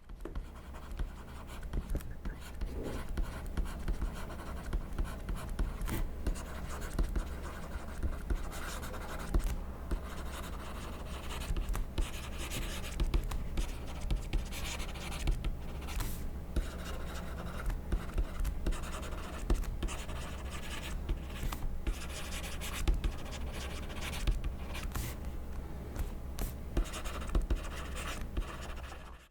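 Pen writing on paper: continuous scratching strokes with short gaps between words, over a low rumble.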